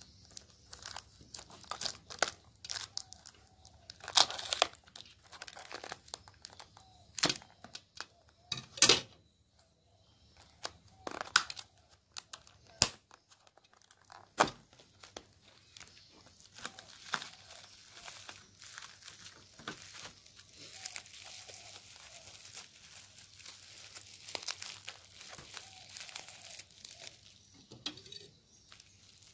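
Scissors cutting and pulling at a clear plastic clamshell container and its packaging, with sharp plastic snaps and crackles, the loudest in the first half. Then a steadier crinkling as bubble wrap is handled and unwrapped.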